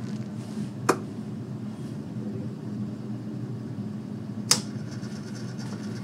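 Whirlpool top-load washing machine humming steadily as it starts up, its drain motor having pulled the brake-release lever. Two sharp clicks cut through the hum, one about a second in and one about four and a half seconds in.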